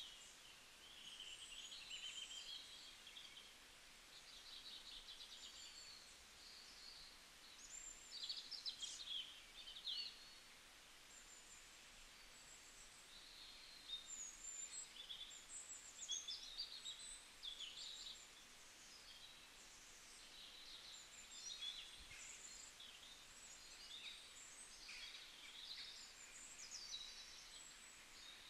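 Birds chirping faintly and irregularly, short high calls coming and going throughout, over a light hiss of outdoor background noise.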